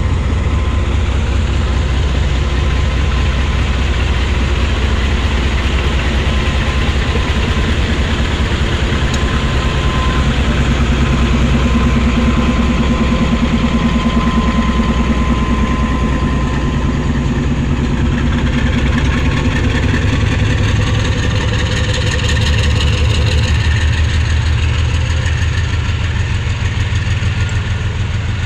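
German-built diesel locomotive's engine chugging as it pulls its train slowly past. Its heavy, rhythmic beat dominates throughout. In the later part the coaches' wheels roll by on the rails, adding a rattling hiss over the engine.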